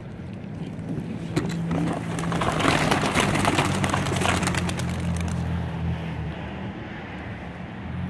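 A flock of racing pigeons bursting out of an opened wooden release basket, a dense flurry of clattering wingbeats and wing claps that starts about a second in, is loudest around three to four seconds and dies away by about five and a half seconds. A steady low hum runs underneath.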